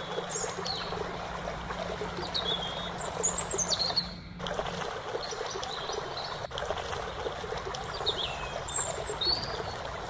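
Steady hiss of trickling water with short, high bird chirps and whistles scattered throughout. The sound drops out briefly about four seconds in.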